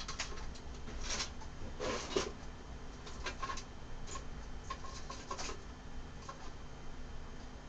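Scattered light clicks and rustling of small objects, such as wire, being handled on a workbench, with a steady low electrical hum underneath.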